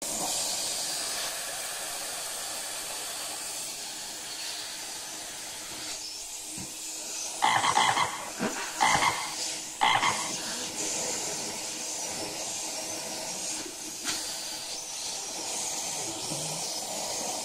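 Central vacuum hose nozzle running with a steady suction hiss as a cat rubs his fur against it, with a few loud short bursts near the middle.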